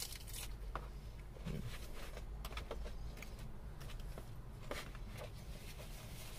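Close-up eating sounds: chewing a mouthful of lettuce salad, with small crunches and mouth clicks scattered throughout, over a low steady hum.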